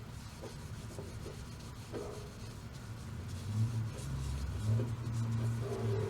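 Varnish being rubbed onto a wooden hammer handle: a soft rubbing with a few light ticks, with a low hum coming in about halfway through.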